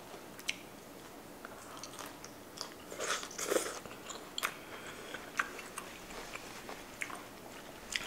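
Close-miked mouth sounds of a person biting and chewing crisp green beans: irregular sharp crunches and wet clicks, with a denser run of chewing about three seconds in.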